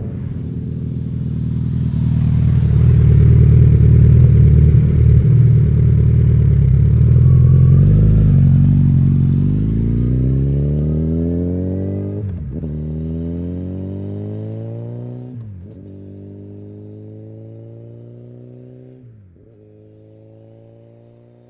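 Suzuki Hayabusa inline-four sports motorcycle accelerating hard close by, then pulling away. It upshifts three times as its engine note rises and fades into the distance.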